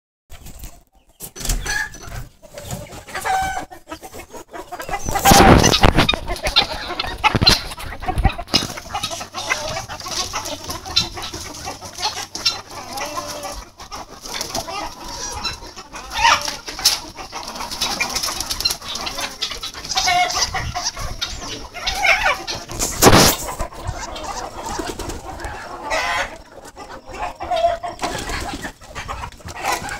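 Chickens clucking and calling in a mixed backyard flock. Two loud noises cut across the calls, one about five seconds in and another past twenty seconds.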